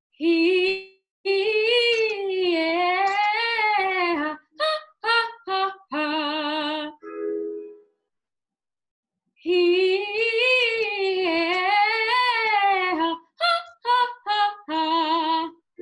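A female soprano voice singing a high vocal exercise twice over: long phrases that swoop up and down in pitch with vibrato, then a run of short detached notes, then a held note. A brief keyboard chord sounds between the two passes.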